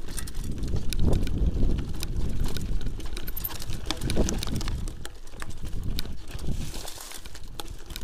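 Mountain bike rolling fast down a dirt forest trail: a steady low rumble from the tyres with frequent sharp rattles and knocks as the bike bounces over bumps.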